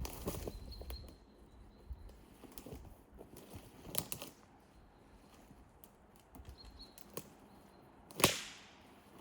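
Twigs and small branches cracking and snapping while brush is cleared by hand, with rustling between: a few sharp snaps, the loudest near the end.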